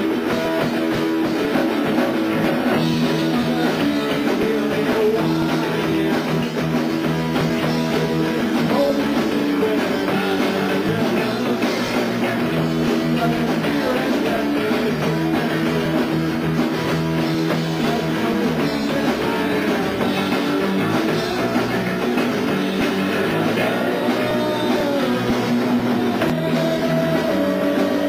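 Three-piece rock band playing a punk-rock song live: electric guitar, bass guitar and drum kit, with a lead vocal.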